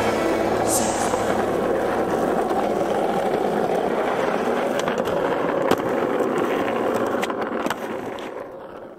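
Skateboard wheels rolling on asphalt with a steady rumble, broken by a few sharp clacks of the board, the loudest a little past halfway. The rolling fades out near the end.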